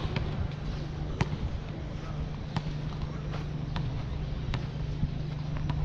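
Outdoor park ambience: sharp taps or knocks come about once every second or so over a steady low hum.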